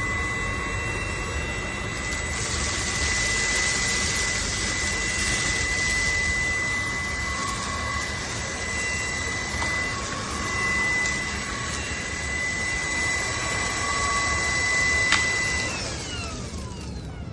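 Cordless stick vacuum cleaner running with a steady rushing noise and a high motor whine. Near the end a click comes, and the whine falls away as the motor winds down.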